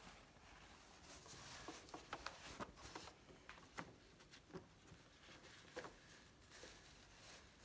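Near silence with faint rustling and a scatter of small clicks and taps from a woven ribbon and fabric placemat being handled and positioned under a sewing machine's presser foot. The sewing machine is not running.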